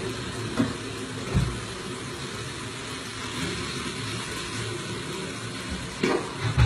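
Knocks and clatters of kitchen items being handled over a steady rushing noise; a couple of knocks come in the first second and a half, and the loudest pair comes near the end.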